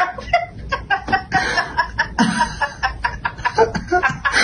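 Choppy, cackling laughter: a string of short, irregular chuckles.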